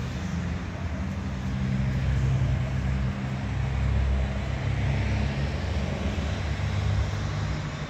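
Steady low rumble of vehicle noise, held low tones with a light hiss above.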